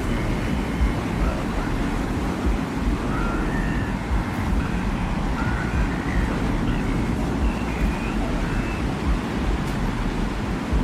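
Steady desert wind ambience for a sci-fi soundscape, a dense rushing noise over a deep low rumble, with faint brief high tones here and there.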